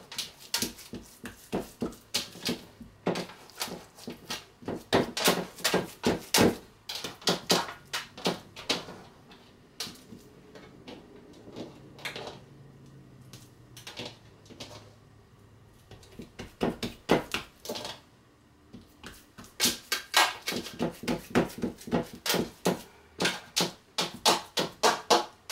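Hands patting and pressing a raw ground-beef meatloaf mixture into a roasting pan: a run of quick, wet slaps and squishes, several a second, pausing for a few seconds around the middle.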